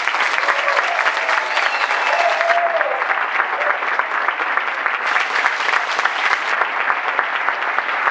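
Theatre audience applauding steadily, many hands clapping at once, at the cast's curtain call.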